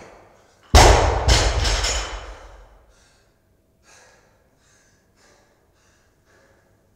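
Loaded barbell dropped to the floor after a clean: a heavy thud about a second in, followed by a couple of smaller bounces that die away over about two seconds, then faint hard breathing.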